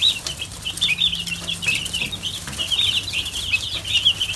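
Dozens of young chicks peeping continuously, many short high chirps overlapping.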